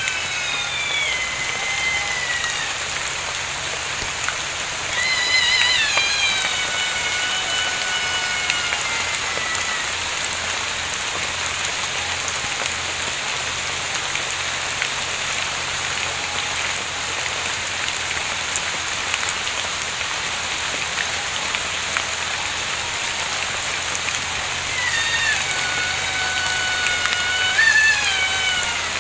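Steady rain falling, with a loud, shrill, long shriek from an unseen creature heard three times. Each shriek wavers at first and then glides down in pitch over several seconds: one in the opening seconds, one about five seconds in, and one near the end.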